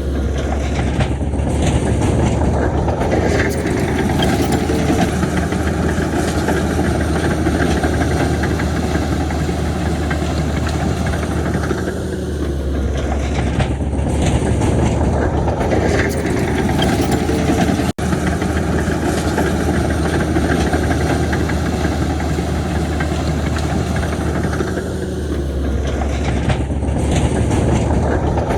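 Heavy diesel construction machinery engines running steadily with a deep hum. The sound drops out for an instant about two-thirds of the way through.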